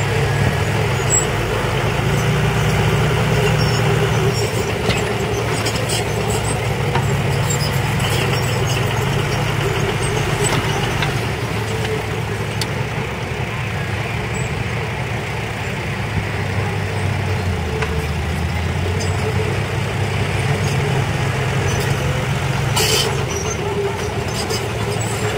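Diesel engines running steadily: a dump truck tipping its bed to unload soil, with a small Komatsu bulldozer also running. A brief sharp noise near the end.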